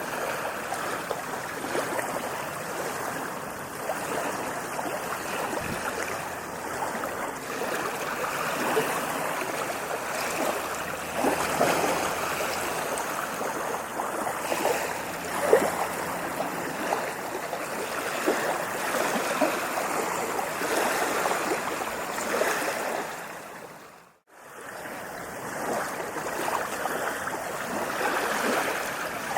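Ocean waves washing and fizzing on a beach, a steady rushing surf with small swells. About two-thirds through the sound briefly fades out to near silence and fades back in.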